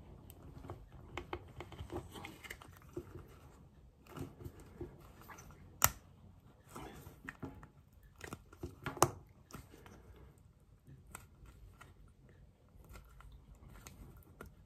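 Small handling noises of a rubber carburettor piston diaphragm from a Honda Deauville being worked onto its piston with a plastic card: scattered rubbing and small clicks. There are two sharper clicks, about six and nine seconds in.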